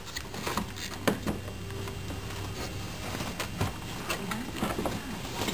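Scattered light clicks and knocks of plastic toys being handled as a toddler rummages in a toy kitchen sink, over a faint steady low hum.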